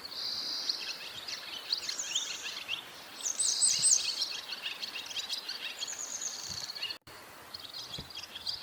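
Barn swallows twittering: quick high chirps run together with rapid rattling trills, loudest about three and a half seconds in.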